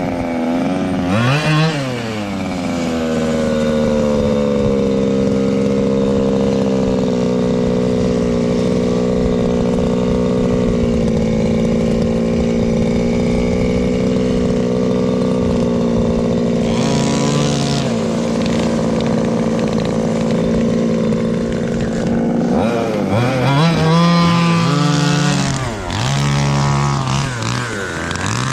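Small two-stroke gasoline engine of a 1/5-scale RC buggy: revved twice, then idling steadily for about twenty seconds, then blipped up and down several times near the end.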